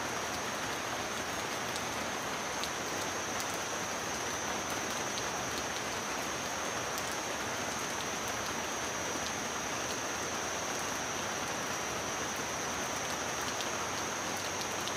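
Steady rain falling on wet ground, with single drops ticking now and then.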